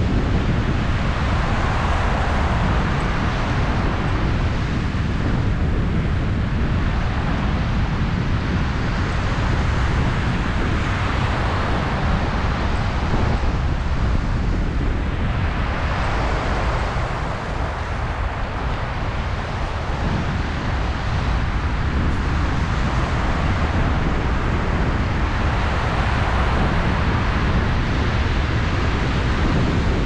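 Wind buffeting the microphone with a steady low rumble, over surf washing on the beach that swells and fades every few seconds.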